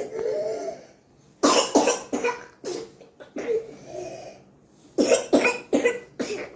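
A patient coughing in two runs of short, harsh coughs, each coming after a long, pitched in-breath. This is the whooping 'inspiratory woof' of a whooping-type cough, which the doctor says lab tests show is not true whooping cough.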